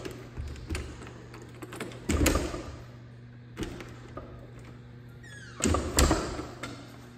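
A glass-paned French patio door worked by its knob: latch clicks and the door knocking shut, about two seconds in and twice close together around six seconds in, over a steady low hum.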